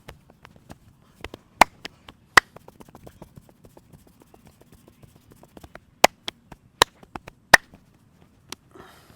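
Hand percussion of a massage: light rapid tapping and chopping strokes several times a second, with about five much louder sharp smacks.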